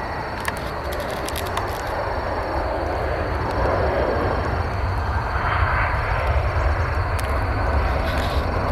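Jet airliner engines, a steady rushing rumble with a heavy low end that grows gradually louder.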